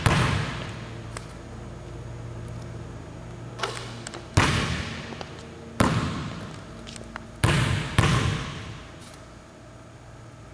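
Basketball bounced on a hardwood gym floor, about five irregularly spaced bounces that each ring out with a long echo in the hall. The bouncing stops about two seconds before the end.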